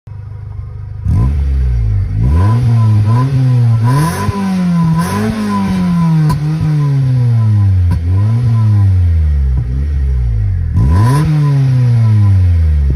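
Honda Orthia's exhaust with its four-cylinder engine being revved in repeated short blips, the pitch rising sharply and falling back each time, then settling to a steady idle near the end.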